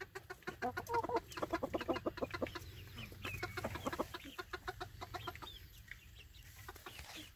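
Chickens clucking in a fast run of short notes, several a second, thinning out after about five seconds.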